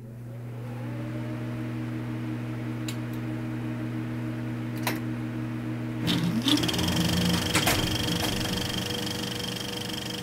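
Film projector starting up: a motor hum that swells over the first couple of seconds and holds steady with a few clicks, then about six seconds in a rising whine and a whirring clatter as the mechanism runs up to speed.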